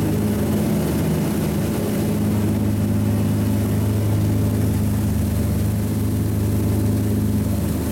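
Motorboat engine running steadily at speed, a constant low drone over a rushing hiss of water churned up in the wake.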